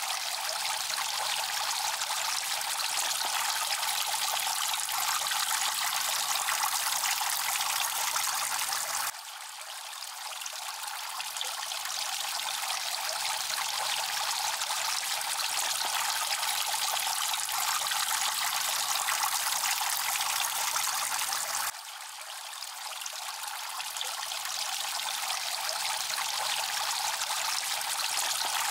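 Water trickling steadily from a bamboo spout into a small pond. The sound drops abruptly twice and swells back up over a few seconds.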